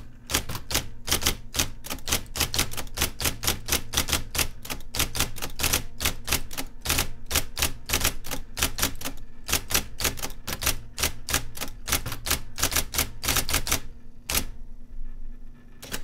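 IBM Selectric electric typewriter typing out a sentence: its golf-ball typing element strikes the paper in quick clicks, about four a second, over the steady hum of its running motor. The typing stops near the end after one last strike.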